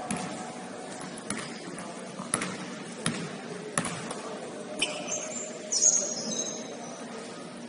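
Basketball game play on a gym court: a ball bouncing on the hardwood in sharp, irregular knocks, then a few short high sneaker squeaks about five to six seconds in, over a murmur of the hall.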